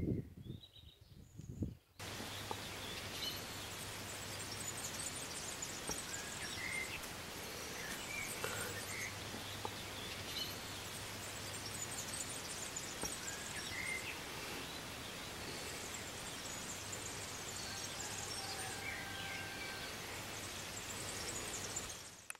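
Steady background hiss with a low hum and occasional short bird chirps, cutting in abruptly about two seconds in after a few faint low rubbing sounds.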